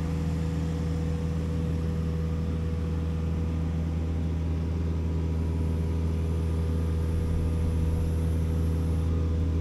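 Compact excavator's diesel engine running at a steady speed as it lifts a long steel H-beam, a constant low drone with no change in pitch.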